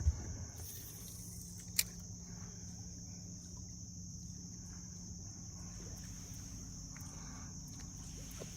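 Steady high-pitched insect chorus droning on, with a low steady hum coming in about a second in and a single sharp click just before two seconds.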